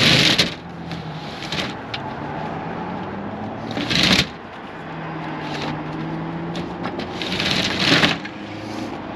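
Fire engine's roll-up compartment door rattling in its track as it is rolled and latched, three short clattering runs about four seconds apart, over a low steady hum.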